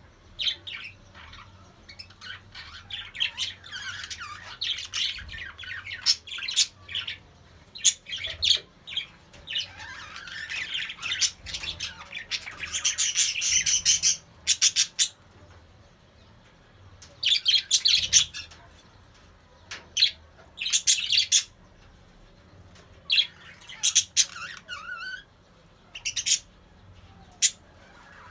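Budgerigars chirping and warbling in irregular bursts of quick, high notes, with a longer run of chatter about halfway through and brief pauses between bursts.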